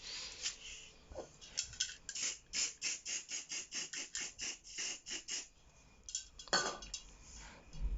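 A fast run of short rubbing or scraping strokes on the painted washing machine's surface, about four or five a second for several seconds, then a few more strokes near the end.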